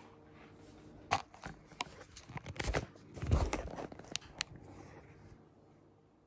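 Handling noise from a camera being picked up and moved about by hand: scattered clicks and rubbing, with a louder dull thump a little over three seconds in, then it goes quiet.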